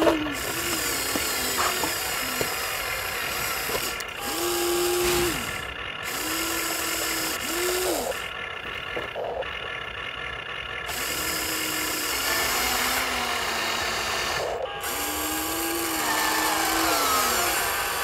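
Small electric motors of a remote-control toy vehicle whirring. The motors start and stop several times, the pitch rising as each run starts and dropping as it ends.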